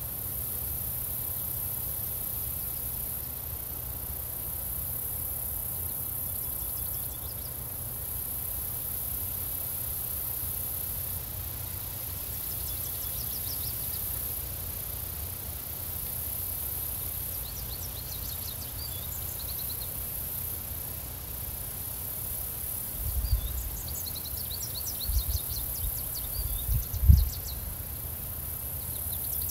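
Steady high-pitched chorus of crickets with a few short trilled bird songs, over wind rumbling on the microphone that gusts harder a few times near the end.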